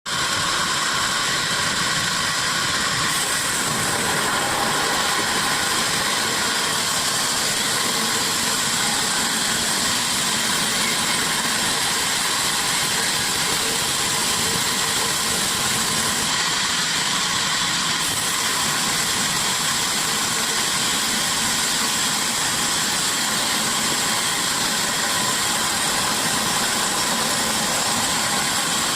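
Sawmill running steadily, a continuous machine noise with no break or change.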